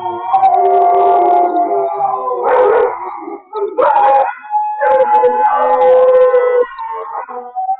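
Several dogs howling together in long, overlapping howls at different pitches, with short breaks between the howls.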